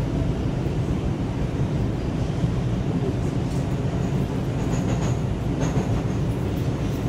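New York City subway car riding on the rails, heard from inside the car: a steady, loud low rumble of wheels and running gear, with faint high-pitched squeals about five seconds in.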